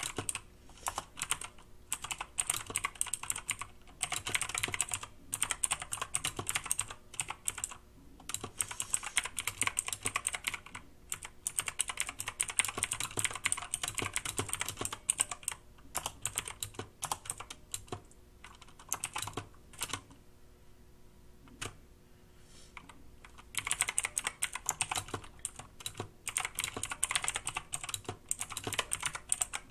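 Typing on a Yeyian Flare 2000 series mechanical keyboard with clicky blue switches: rapid runs of sharp key clicks, with a short pause in the typing a little past the middle.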